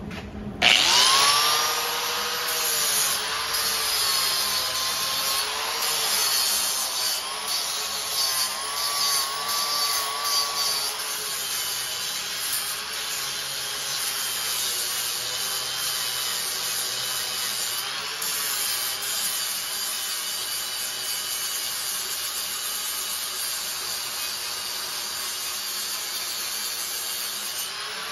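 Angle grinder with a flap disc spinning up with a rising whine about half a second in, then grinding down weld beads on thick steel tubing. Its whine dips and recovers as the disc is pressed into the metal and eased off.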